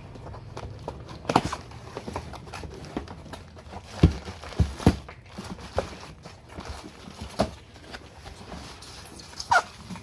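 Irregular knocks, taps and clicks of objects being handled and set down, several louder knocks about four to five seconds in, over a low steady hum. A short falling squeak comes near the end.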